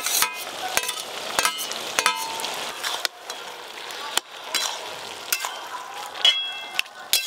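Metal spatula stirring bottle gourd and fried shrimp in a metal kadai, clinking and scraping against the pan over a steady sizzle. The pan rings briefly about six seconds in.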